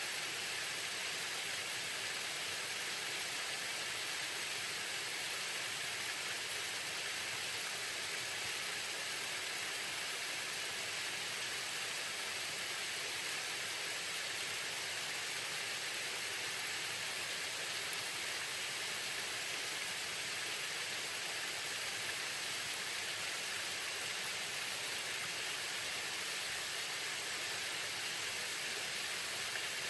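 Waterfall: a steady rush of falling water, an even hiss weighted toward the high end, with no breaks or changes.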